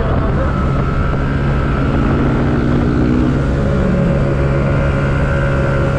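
Yamaha Aerox scooter's single-cylinder engine running steadily at highway speed, about 80 to 90 km/h, with a constant drone and no gaps.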